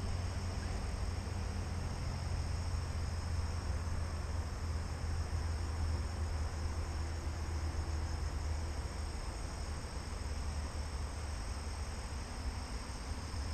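Steady chorus of insects, a constant high-pitched chirring, over a steady low rumble.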